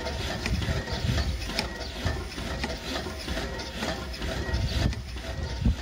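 Homemade alpha Stirling engine generator running slowly and winding down as its wood fire dies out. Its pistons, rocker linkage and flywheel make a rhythmic mechanical clatter, about two knocks a second, over a low rumble.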